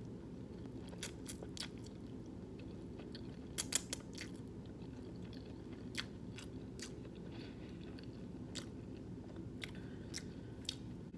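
Close-mic chewing of a soft mouthful of vegan meatball and spaghetti in sauce, with wet mouth clicks and smacks scattered throughout, the loudest cluster about three and a half seconds in, over a steady low hum.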